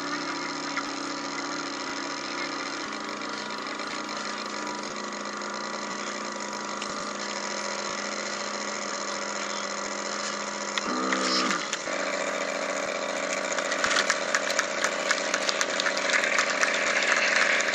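Model landing craft's drive motor running at a steady pitch, then winding down in a quick falling whine about eleven seconds in as the boat slows at the beach. A rougher buzzing motor sound with rapid rattling clicks follows while the bow ramp lowers.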